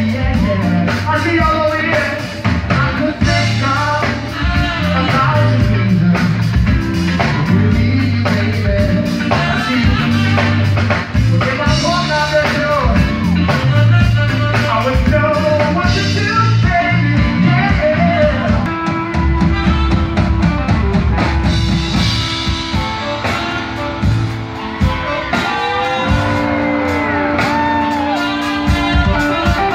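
Live funk-rock band playing loud: drums, electric guitar and bass with a singer, and near the end long bending guitar notes.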